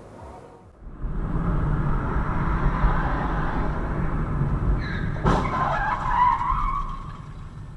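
Car road and engine noise heard from inside the cabin, starting at a cut about a second in. A little over five seconds in there is one sharp bang, then a wavering squeal for about a second and a half, like tyres skidding in a sudden traffic incident.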